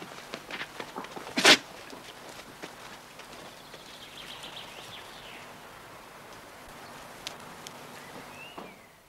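Footsteps on a dirt farmyard for the first couple of seconds, with one short, loud, sharp sound about a second and a half in. Then a quiet outdoor background with faint high chirps.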